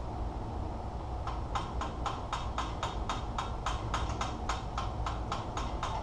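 Ratchet wrench on a stuck filter clicking steadily, about four sharp clicks a second, starting about a second in.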